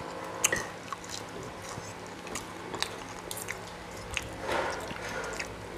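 Chewing and mouth sounds of people eating, with scattered light clicks of a fork and spoon against ceramic plates; the sharpest click comes about half a second in.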